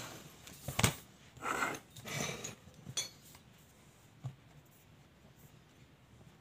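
Handling noises: a sharp knock about a second in, two short rustles, then a few light clicks, with faint room tone after about four and a half seconds.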